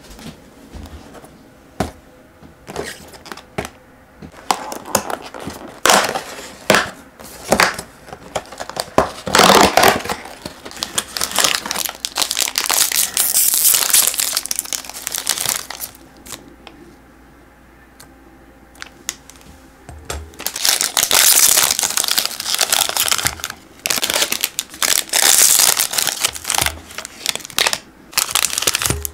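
Foil-lined Choco Pie wrappers crinkling and tearing as they are pulled from a cardboard box and ripped open by hand, in two long spells of dense crackling with scattered clicks and knocks between them.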